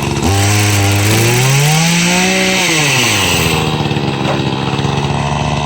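Chainsaw running, its engine note climbing in pitch about two seconds in, then dropping back and holding steady.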